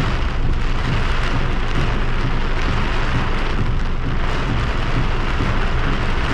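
Torrential rain beating on a car's windscreen and roof, heard from inside the car: a loud, steady rush with a deep rumble underneath.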